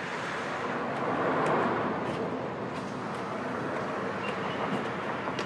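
Coach bus engine idling at a stop: a steady running noise that swells briefly about a second in.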